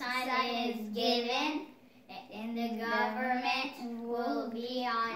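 Child singing without accompaniment, in held notes with a short break about two seconds in.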